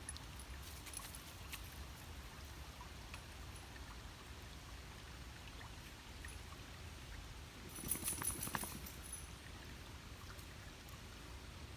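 Faint creek water running steadily, with scattered small clicks. About eight seconds in, a brief cluster of louder clicks and thin high notes lasts for about a second and a half.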